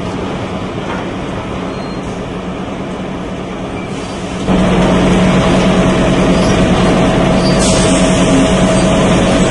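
Log debarking machine running as a log passes through it: a steady mechanical drone with a constant low hum, which jumps abruptly louder about four and a half seconds in.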